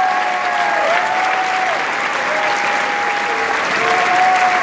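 Audience applauding, with cheers and calls rising over the clapping.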